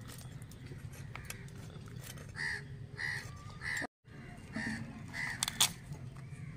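Crows cawing: five caws in two runs of three and two, each about half a second apart, over a steady low background hum. Scattered clicks and a sharp knock come in a little after the middle.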